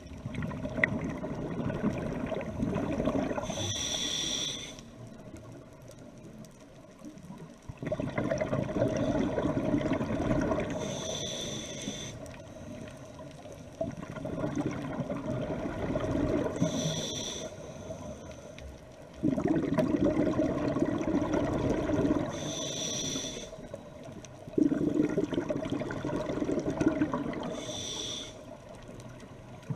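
A scuba diver breathing through a regulator underwater, about five breaths: each a few seconds of loud bubbling exhale and a short high hiss of inhale, with quieter pauses between.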